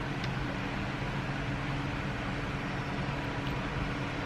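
Steady low drone of construction machinery running, with a faint even hum.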